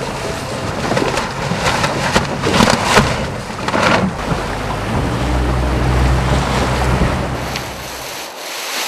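Wind buffeting the microphone over rushing, splashing water as an RS Feva dinghy sails through chop. The heavy low rumble cuts off suddenly near the end.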